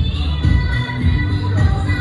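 Recorded Tibetan dance music for a gorshey circle dance: a strong, steady bass beat under held melody notes.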